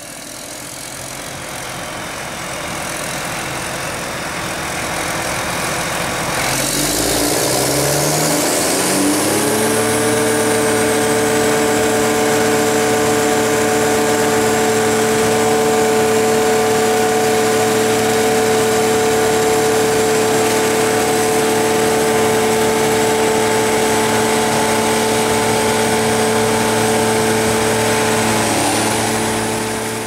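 John Deere 7500 self-propelled forage harvester running while chopping maize for silage. A few seconds in, its pitch climbs, then settles into a loud, steady whine of several pitches.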